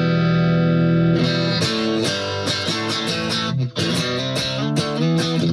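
Guitar played through an amp with a LEKATO R COMP compressor pedal engaged, evening out the sustain. A chord rings and is held for about the first second. After that come picked notes and chords in a riff, with a brief gap a little past the middle.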